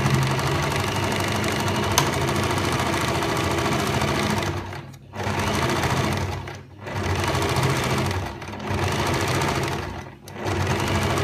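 Electric domestic sewing machine running a straight topstitch through layered burlap and canvas, sewing in spells of one to five seconds with four brief stops as the round basket edge is turned. A single sharp click about two seconds in.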